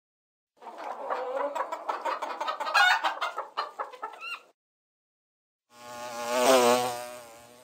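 Two separate animal-call sound effects. First comes about four seconds of rapid, busy calling made of many short strokes. After a brief silence there is one drawn-out wavering call that swells and then fades.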